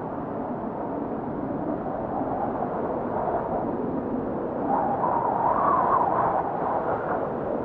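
Wind blowing steadily with a wavering, hollow howl, which grows louder and rises in pitch about five seconds in.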